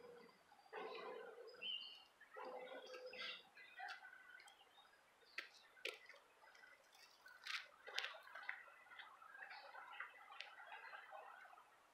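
Faint calls of geese and ducks on the water: a few short low calls in the first three seconds and a brief high chirp, followed by scattered light clicks and soft chatter.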